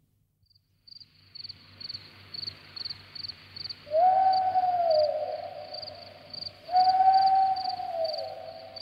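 Night-time sound-effect atmosphere: crickets chirping steadily, a few chirps a second, over a low hum. About four and seven seconds in come two long calls that rise slightly, hold, then glide down.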